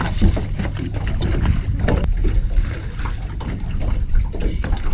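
Wind buffeting the microphone over water lapping against a small boat's hull, with a low rumble and a few sharp knocks, one about two seconds in.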